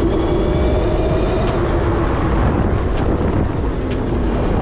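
Electric motor of a converted electric dirt bike whining on the move, its pitch rising slightly and then easing off about two seconds in. Heavy wind rumble on the microphone and scattered sharp ticks run underneath.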